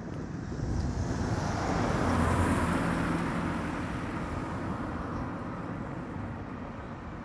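A motor vehicle passing by: its engine and tyre noise swell to a peak about two and a half seconds in, then slowly fade away.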